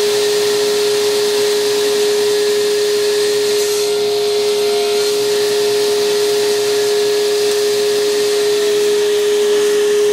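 A power tool motor running steadily: a constant whine over an even rushing hiss, with no change in pitch or level.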